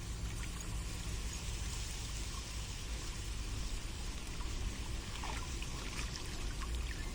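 Steady trickling water with a low rumble underneath, and a few faint short clicks from about five seconds in.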